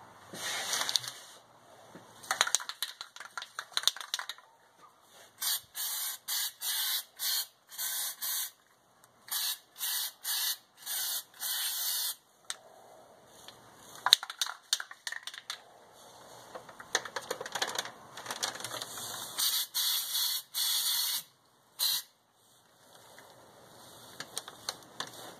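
Aerosol can of spray-on bed liner hissing in a string of short sprays of about half a second each, with a longer spray near the end. Between the sprays comes quick clicking and rattling, typical of the can being shaken with its mixing ball knocking inside.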